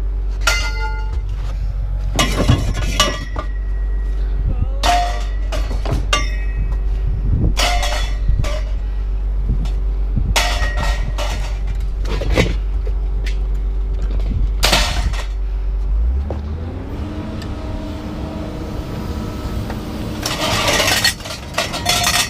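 Scrap metal being unloaded: a dozen or so sharp clanks, each ringing briefly, over a steady low engine hum that shifts to a higher, rising note about three-quarters of the way through.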